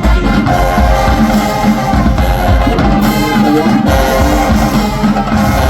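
High school marching band playing loudly: brass section (trumpets and trombones) over drums.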